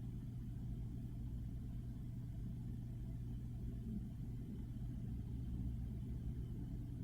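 Steady low hum, even throughout, with no distinct clicks.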